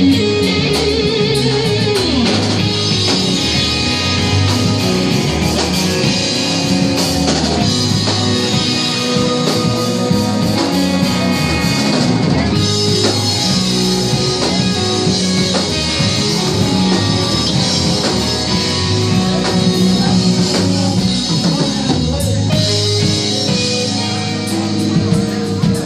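Live rock band playing: electric guitars over a drum kit, steady and loud.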